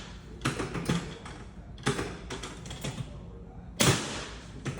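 Chiropractic drop table's drop section falling with one loud bang about four seconds in, as the chiropractor thrusts into a light pelvic adjustment. Before it come a few lighter clicks and knocks.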